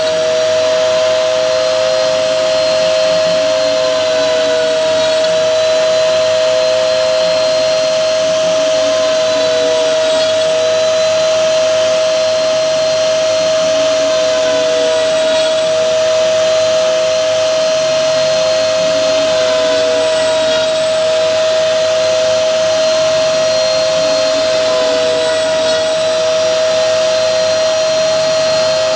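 CNC router spindle running while milling, a steady high whine with a second tone that wavers slightly up and down as the cut goes on.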